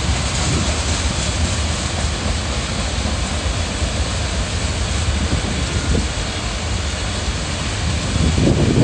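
Freight train of autorack cars rolling past, a steady rumble of wheels on rail. Wind buffets the microphone, picking up near the end.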